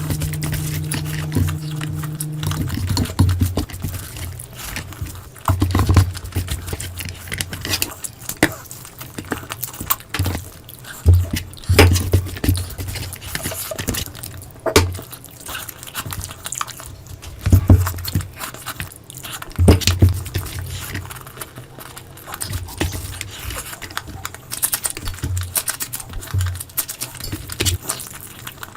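Close-miked eating sounds of a curry meal: irregular chewing, smacking and wet clicks with short low thumps. A steady held tone stops about two and a half seconds in.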